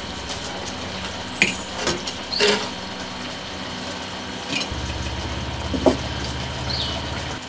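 Clay cookware knocking a few times as pots and a clay frying pan are handled and set down on a clay wood-fired hearth. Short high chirps recur every couple of seconds, and a low steady hum comes in about halfway through.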